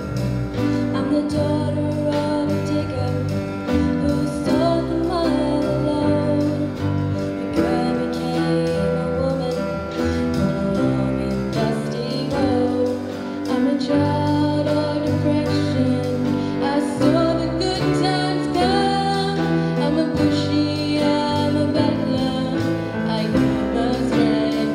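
A girl singing a solo into a microphone over instrumental accompaniment with held chords, the melody line wavering above it.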